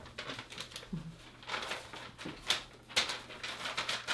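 Sheets of paper rustling and crinkling in the hands as they are shuffled through, in a run of short, sharp rustles over a steady low hum.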